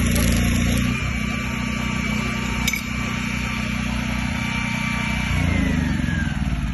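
Engine of a petrol welding generator set running steadily. Its note gets quieter about a second in and louder again about five seconds in.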